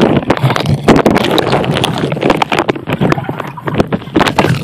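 Underwater sound picked up by a phone sealed in a ziploc bag: the plastic bag crinkles and knocks against the microphone in a rapid, irregular clatter over a muffled rush of water.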